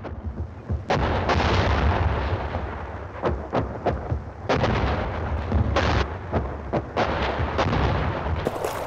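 Battle sounds: a continuous low rumble of artillery with sharp gunshots cracking over it at irregular intervals.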